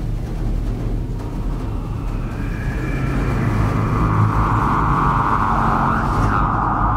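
Film sound design from an animated short: a steady deep rumble, with a brighter swell building over it from about two seconds in and a quick pitch sweep near the end.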